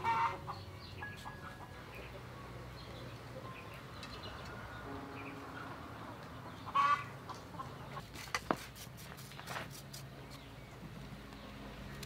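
Chickens clucking, with a loud call near the start and another about seven seconds in, then a few sharp clicks.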